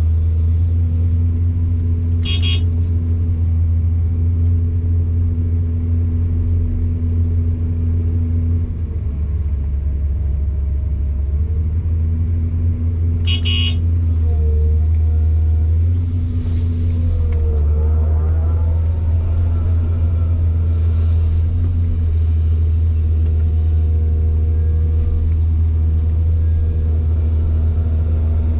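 Excavator's diesel engine running steadily with a deep drone, easing briefly about nine seconds in and picking back up near twelve seconds. Two short, high chirps sound about eleven seconds apart.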